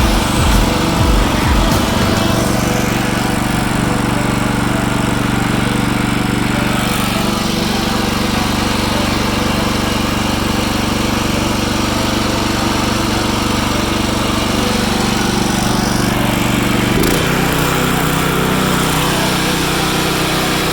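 Small engine of a Wood-Mizer LT15START portable sawmill running at a steady speed, its note changing about three-quarters of the way through.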